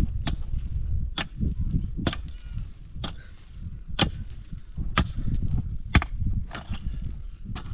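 A hand tool striking a hard surface again and again, at a steady pace of about one blow a second.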